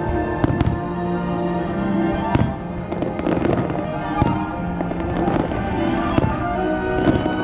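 Fireworks bursting: a series of sharp bangs, thickest in a cluster of quick pops around the middle, over the show's music with held notes.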